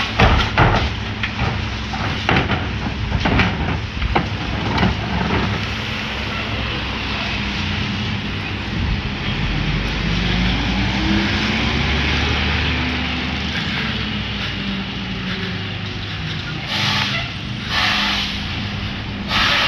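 Recyclables and a plastic cart clattering into the hopper of a Mack LE McNeilus rear-loader garbage truck. The truck's diesel engine then revs up, rising and falling in pitch, as it pulls away. Three short air-brake hisses come near the end.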